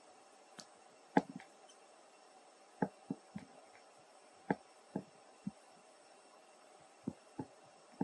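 About a dozen short, irregular clicks and soft knocks over a faint steady hum.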